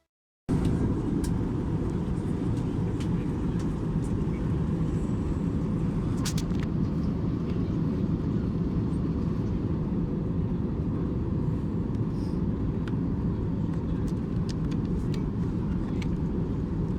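Steady low rumble of an Airbus A321-200 cabin, from engine and airflow noise, with a few faint clicks; it cuts in suddenly about half a second in.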